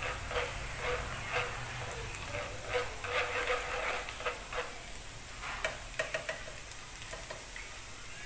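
Minced garlic and sliced ginger sizzling in hot oil in a frying pan while being stirred with chopsticks, with a steady hiss and frequent crackles and pops. The aromatics are being fried until fragrant, and the crackling thins out near the end.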